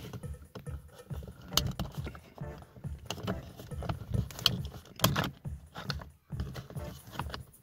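Plastic clicking and rattling as the plastic cover over a VW Golf 7's rear-view mirror mount is handled and pressed into place, with a few sharp clicks, the loudest about five seconds in.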